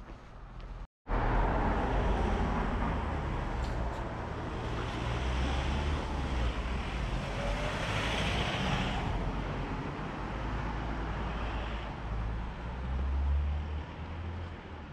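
An SUV driving past on the street, loudest about eight seconds in, over steady road and traffic noise. The sound cuts out briefly about a second in.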